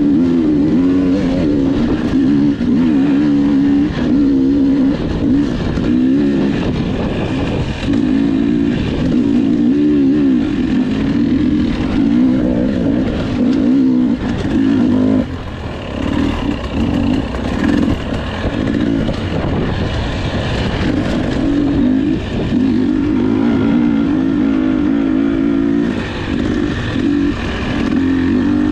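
Enduro motorcycle engine ridden hard, its revs rising and falling constantly with the throttle and gear changes, with a brief drop in revs about halfway through.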